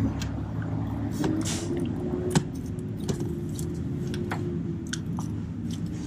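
Long ratchet with a socket and extension knocking and scraping lightly against metal while it is worked onto a bolt head by feel, a scatter of short clicks over a steady low hum.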